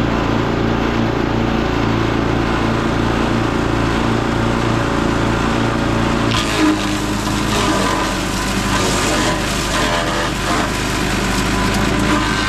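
Echo Bear Cat chipper-shredder's small gasoline engine running steadily. About six seconds in, pine branches fed into it are being chipped, adding a rough, uneven grinding noise over the engine.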